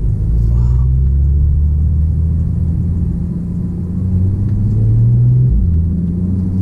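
Porsche 911 Turbo's twin-turbo flat-six engine running under way with a low, steady rumble. Its pitch rises slowly, then drops back about five and a half seconds in.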